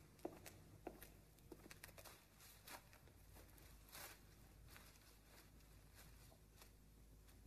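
Faint footsteps of a man walking slowly on pavement, a scatter of soft ticks, over a faint low hum.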